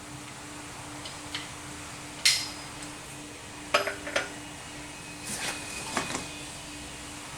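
Hand tools and metal engine parts clinking and knocking against each other, a handful of sharp clanks with short ringing, the loudest about two seconds in and a cluster around the middle. A faint steady hum runs underneath.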